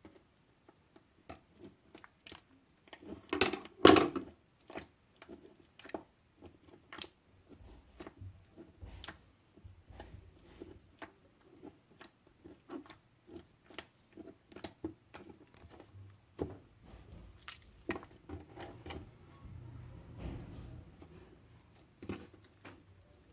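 Slime being squeezed and kneaded by hand: a string of small sticky clicks and air-bubble pops, with a louder wet squelch about three to four seconds in.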